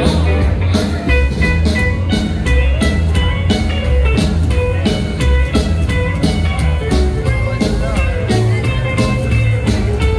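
Live rockabilly band playing: slapped upright bass, drum kit keeping a steady beat, acoustic and electric guitars and a steel guitar.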